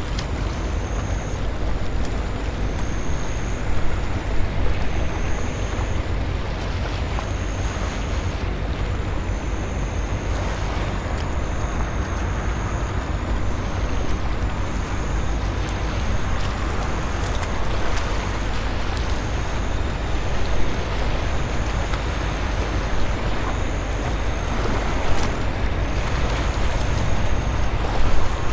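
Outdoor waterside ambience made up of wind rumbling on the microphone and a steady background wash, with a few brief louder gusts. A faint high-pitched chirping repeats about once a second underneath.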